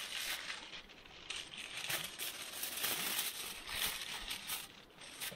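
Aluminium foil crinkling and rustling in irregular bursts as it is handled and folded around chicken.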